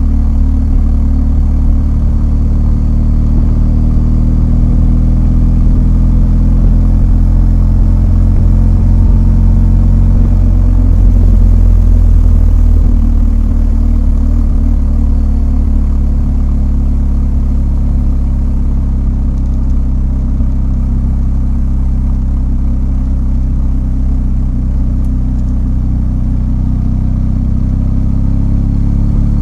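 BMW R1250 GS's 1254 cc flat-twin boxer engine running with a steady low engine note that gets a little louder around the middle.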